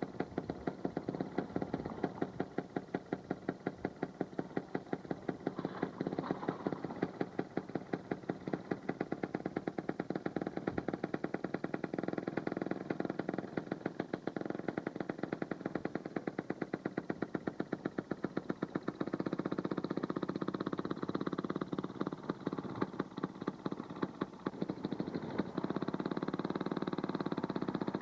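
Railroad motorcar's two-stroke engine running in a rapid, even string of pops. About two-thirds through, a steadier rumble joins in under the popping.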